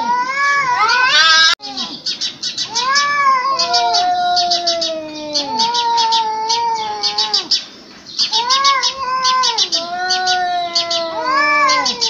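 Two domestic cats caterwauling at each other in a fight standoff: long wavering yowls that rise and fall, one after another and sometimes overlapping. A fast high chirping runs beneath them.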